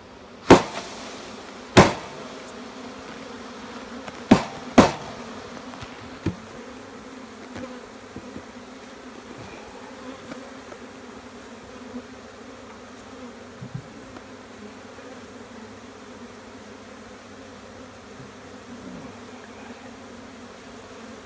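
A honeybee swarm buzzing steadily, a dense hum of many bees. It is broken by four sharp knocks in the first five seconds, two close together.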